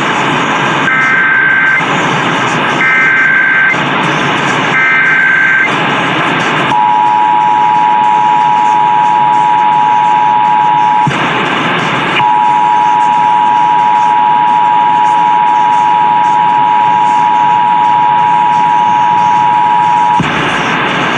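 Emergency Alert System broadcast over a hissy radio signal: three short bursts of SAME digital header tones about a second apart, then the steady two-tone attention signal. The attention signal breaks off for about a second and resumes for about eight seconds. This announces a required monthly test.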